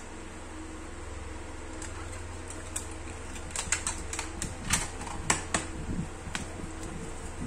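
Clear plastic cassette case being opened and its folded paper J-card insert pulled out and handled: a run of sharp plastic clicks and paper rustles starting about three seconds in, over a steady low fan hum.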